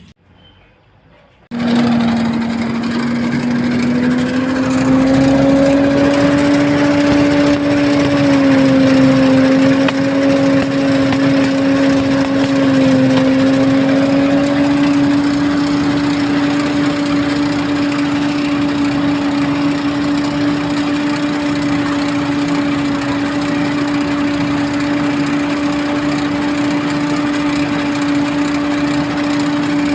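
Rice threshing machine running: it comes on suddenly about a second and a half in and rises a little in pitch over the next few seconds as it picks up speed, then runs at a steady pitch with two brief dips.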